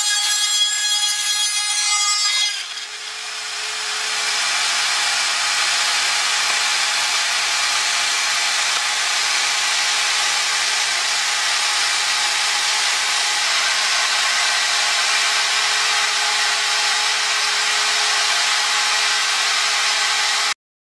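A DIY CNC mill's spindle cutter machining a circle into a wooden board: a steady cutting and rasping noise. For the first two and a half seconds a whine of several steady pitches runs over it. The sound then dips, builds back to a steady level by about four seconds in, and cuts off abruptly just before the end.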